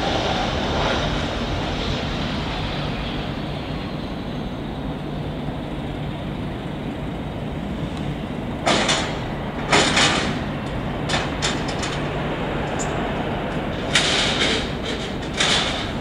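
Emirates Airbus A380-861's four Engine Alliance GP7200 turbofans at takeoff power, a steady jet roar with a low hum. Several short, sharp noisy bursts come through in the second half.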